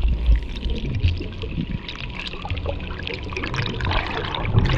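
Water noise picked up by a camera held underwater: a low rumble of moving water with scattered crackling and clicks, growing fuller and louder near the end.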